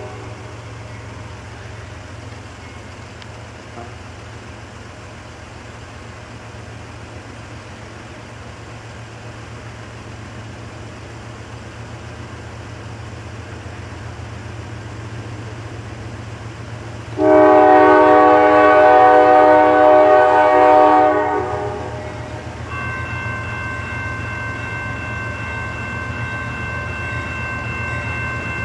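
CSX diesel locomotive horn sounding one long blast about two-thirds of the way in, over the steady low rumble of a slow-moving freight train drawing slowly closer. After the horn a bell rings steadily with a high, even tone.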